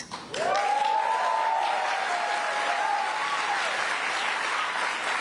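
Crowd applauding, starting about a third of a second in and holding steady, with a drawn-out cheer rising above the clapping over the first three seconds.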